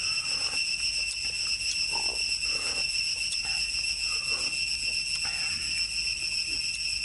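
Insects shrilling in a steady, unbroken high-pitched chorus, with soft irregular sounds underneath.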